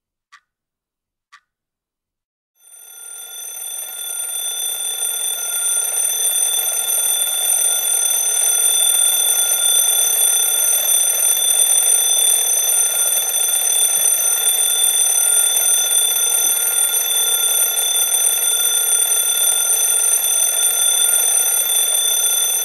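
Twin-bell mechanical alarm clock ticking about once a second, then its bells begin ringing about two and a half seconds in. The ring swells over a second or two into a steady, continuous ring.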